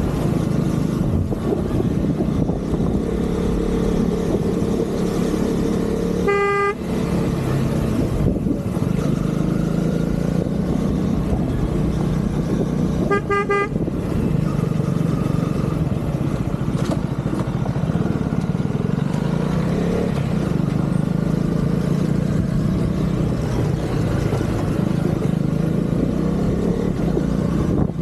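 Motorcycle engine running steadily while riding on the road. A vehicle horn sounds once about six seconds in, then as a few quick toots about thirteen seconds in.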